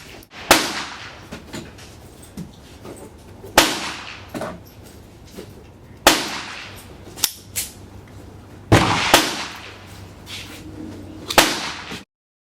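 Five single .22 LR gunshots fired slowly, about two and a half seconds apart, each with a ringing echo. Fainter shots sound between them.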